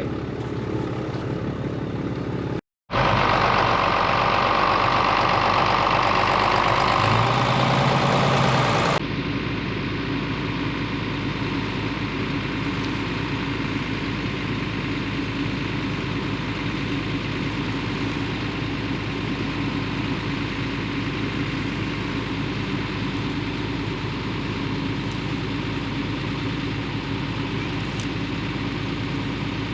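A motor vehicle's engine running steadily. It breaks off for an instant about three seconds in, runs louder until about nine seconds in, then carries on more quietly and evenly.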